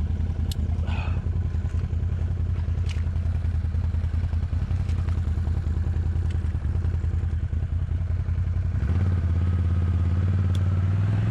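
ATV engine running steadily at idle, with a few sharp clicks; about nine seconds in its note steps up slightly and gets a little louder.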